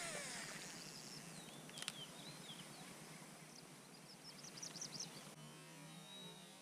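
Quiet outdoor ambience with small birds chirping briefly, a few calls about two seconds in and a quick run of chirps near five seconds, plus a single click about two seconds in.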